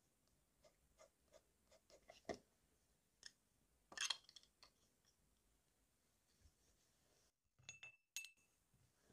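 TWSBI fountain pen nib making short scratchy strokes on sketchbook paper, a few ticks a second, then a single sharp clink of hard objects about four seconds in and a few soft knocks near the end.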